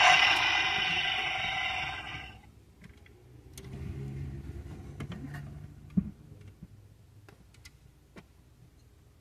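Recorded motorcycle engine sound from the 1:9 Harley-Davidson trike miniature's built-in sound module, played through its small speaker with little low end, cutting off about two and a half seconds in. After it come a few light clicks from the model being handled, the sharpest about six seconds in.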